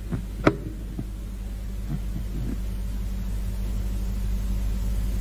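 Steady low mains hum through the sound system, slowly growing louder, with a sharp click about half a second in and a fainter one a second in.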